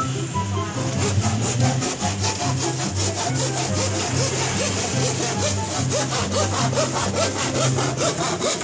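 Handsaw cutting through a thin plywood sheet in quick, even back-and-forth strokes, each stroke a rasping scrape of the teeth through the wood.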